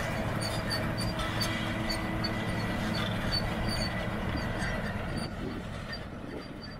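AGCO White 6215 tractor's diesel engine running steadily under load as it pulls a John Deere 714 Mulch-Tiller through corn stalks, with light rattling and ticking from the tillage tool. It fades toward the end as the rig moves off.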